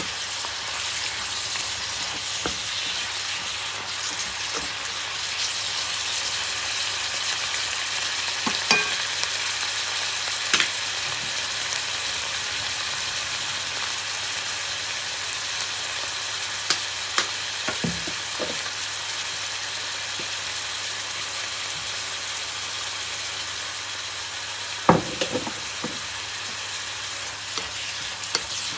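Green mustard greens sizzling steadily as they stir-fry in a pan, with a few sharp knocks of a utensil against the pan, the loudest about 25 seconds in.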